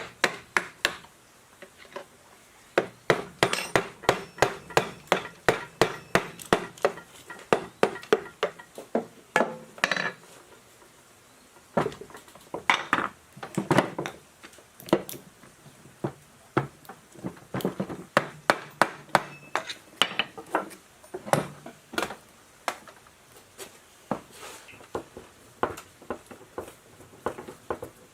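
Metal parts and hand tools knocking and clinking in a quick irregular series of sharp taps, pausing twice.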